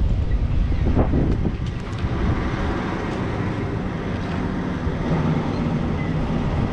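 Wind buffeting the microphone: a heavy, uneven low rumble with no other clear sound, cutting off suddenly at the end.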